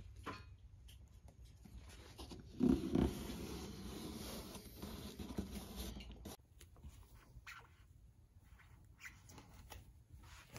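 Cardboard being handled and pressed into place: light scratching and rustling with small taps, and a louder stretch of rubbing and scraping from about two and a half seconds in that stops abruptly about six seconds in.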